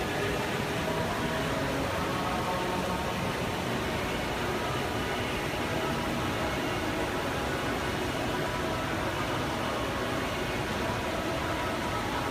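Steady, even background hiss with a faint hum, unchanging throughout, as from air handling or running water-display machinery in a large hall.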